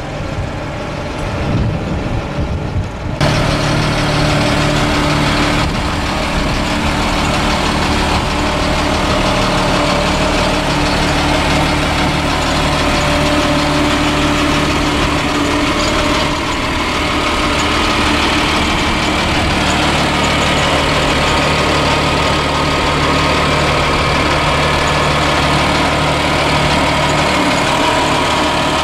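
Caterpillar 7.2-litre inline-six diesel of a Ford F650 truck idling steadily. A rougher, more uneven engine sound in the first three seconds cuts off abruptly.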